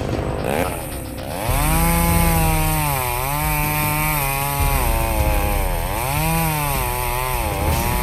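Chainsaw engine running at high revs, its pitch dipping and rising again several times. It gets louder about a second and a half in.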